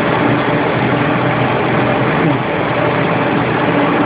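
Steady, loud machinery running noise with a few held low hum tones, unbroken throughout.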